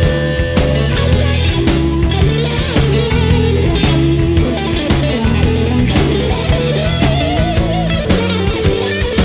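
Rock music with guitar, a changing bass line and a steady drum beat; a wavering lead note sounds near the end.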